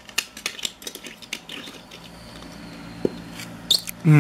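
A small die-cast metal toy dump truck clicking and tapping against a hard tabletop as it is picked up and handled, with a quick run of light clicks in the first two seconds and a few more later. A voice starts a short held sound right at the end.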